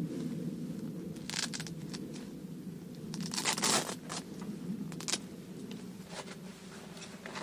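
Handling sounds: crinkling and tearing, twice, about a second in and again past the middle, then a few light clicks, over a steady low hum.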